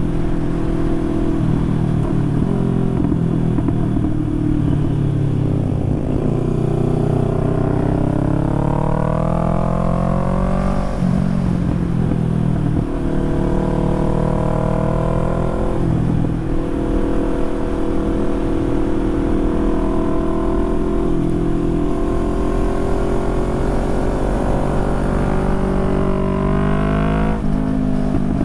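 Motorcycle engine under way, the rider accelerating through the gears: the engine note climbs, drops sharply at a shift, climbs again and drops at a second shift, then holds a steady cruise before rising once more and dropping at another shift near the end.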